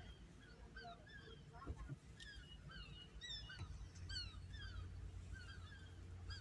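A flock of birds calling faintly, many short falling calls several a second and overlapping, over a low steady hum.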